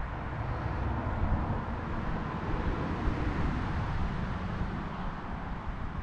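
A car or truck going by on a road: a steady rush of tyre and engine noise that swells about a second in and fades near the end.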